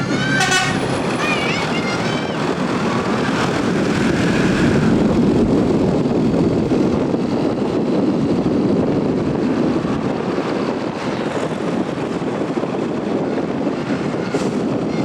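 Large diesel bus engine running loudly in a steady drone at the roadside, with short high-pitched wavering sounds just after the start and again near the end.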